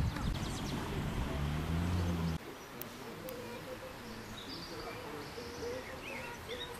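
A low drone cuts off abruptly about two and a half seconds in. After that, birds call over quiet surroundings, with a soft wavering cooing and a few short higher chirps.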